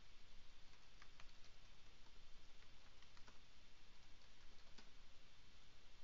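Faint typing on a computer keyboard: scattered, irregular key clicks over a steady low hiss.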